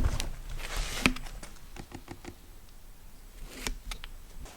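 A few light clicks and knocks of objects being handled, with a brief hiss early on.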